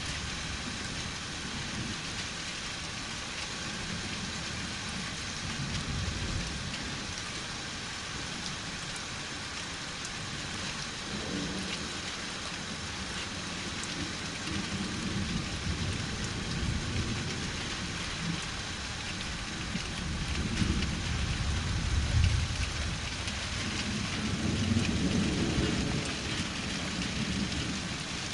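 Steady rainfall hissing, with distant thunder rolling and rumbling low several times. The loudest rumble comes about three-quarters of the way through.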